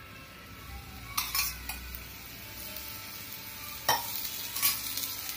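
Oil sizzling as it is spooned onto semolina-coated potato slices on a hot tawa, the hiss building from about a second in, with a few sharp metallic clinks of the spoon, the loudest near the end.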